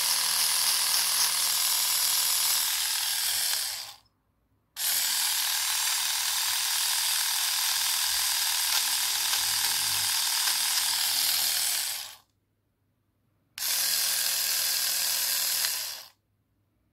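Dearling 3-in-1 epilator set's small battery motor driving its rolling foot-file head: a steady high whir that is switched off and on, running for about four seconds, again for about seven seconds after a short break, then briefly once more before it stops.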